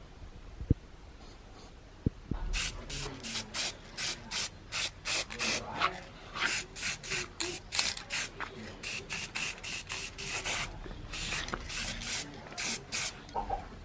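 Steady back-and-forth rubbing by hand, like sanding or polishing a part of a mechanical alarm clock, about two to three strokes a second. It starts after a couple of light clicks about two seconds in and stops just before the end.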